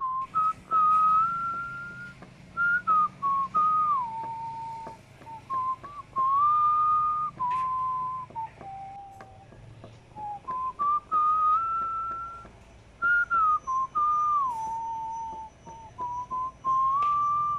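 A person whistling a slow tune in held notes with slides between them, the same phrase heard twice.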